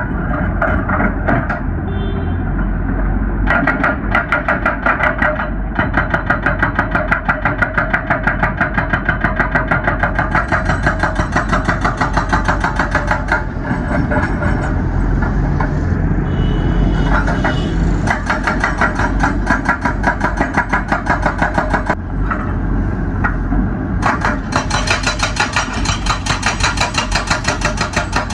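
Excavator-mounted hydraulic breaker hammering hard rock in a rapid, even train of blows, stopping briefly a few times, over the excavator's running engine.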